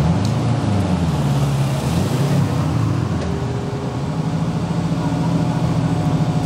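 A fire engine's diesel engine running. Its pitch dips and rises during the first few seconds, then holds steady.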